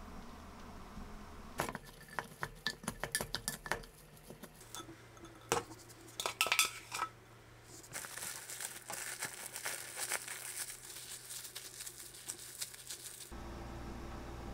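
A utensil clinking and scraping against a glass bowl in quick runs of clicks as rice is mixed with seasonings. From about eight seconds in, plastic cling wrap crinkles steadily as the rice is pressed into balls by hand, and near the end it cuts to a steady low hum.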